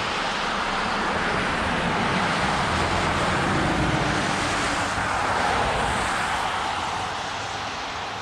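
Kyosho Blizzard 2.0 RC snow vehicle running on snow, its two 1/16-scale brushless motors driving the tracks with a steady hissing whir. It fades gradually near the end as the vehicle moves away.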